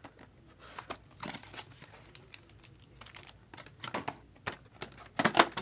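Hands handling a cardboard trading-card box and its wrapped packs: scattered light crinkling and rustling, with a couple of sharper knocks near the end.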